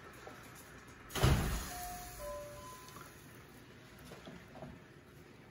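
A single dull thump about a second in as the plastic measuring cup is set down, over faint background music.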